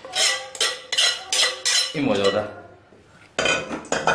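A metal spoon and a broad knife blade scraping and clinking against each other and against an aluminium cooking pot as a paste is pushed off the blade. The strokes come quickly, about three a second, then pause about halfway through and start again near the end.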